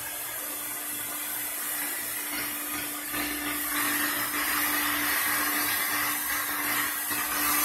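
Roboclean canister vacuum's motor running steadily: a constant hum with a hiss of air, growing a little louder about three seconds in.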